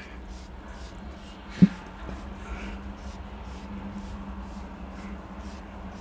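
Comb scratching through short hair in quick repeated strokes, about two or three a second, with a single thump about one and a half seconds in.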